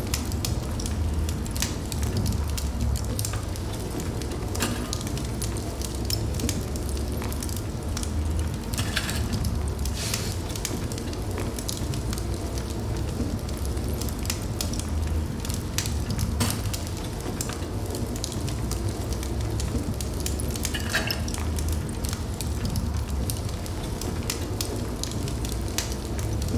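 Fire burning in a fireplace: a steady low rumble of flames with frequent small crackles and a few louder pops scattered through.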